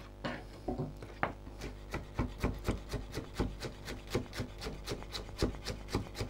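Chef's knife chopping chives on a wooden cutting board: a few scattered knocks, then a steady run of chops, about four a second, from about a second and a half in.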